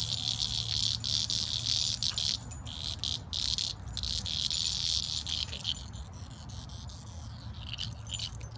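Steady high-pitched insect chirring with a few brief gaps, weakening about six seconds in, over a low steady rumble.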